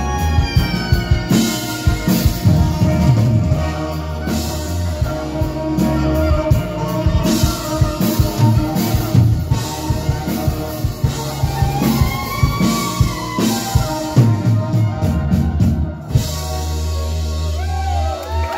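Live rock band playing: electric guitars, bass and drum kit, with saxophone on stage. About sixteen seconds in, the drum hits stop and a held low chord rings on as the song winds down.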